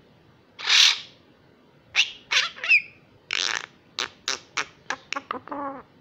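A young common myna calling: a loud harsh, hissing squawk about a second in, then a run of short sharp chips and clicks with a couple of rasping notes, ending in a short pitched call.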